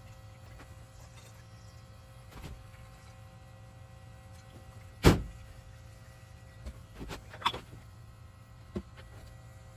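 Handling noises from working on a small air-cooled diesel engine and a plastic bottle of drained fuel: one sharp, loud knock about five seconds in, then a few lighter knocks and clicks.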